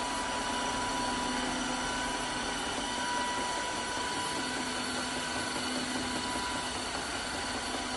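Dreame H12S cordless wet-dry vacuum mop running steadily in auto mode: an even whirring noise with a steady whine on top.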